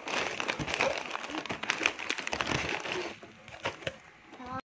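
Plastic snack packets crinkling and rustling as hands rummage through them in a cardboard box, busy for about three seconds and then quieter.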